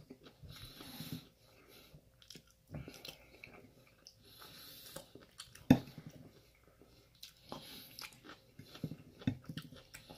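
A person chewing and biting mouthfuls of chicken stir fry with vegetables, with irregular wet mouth clicks and soft breaths. There is one sharp click a little past halfway.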